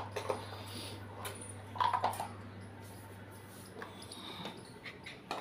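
Light scattered clicks and taps around a wire dog crate and its plastic tray, over a steady low hum, with one short louder sound about two seconds in.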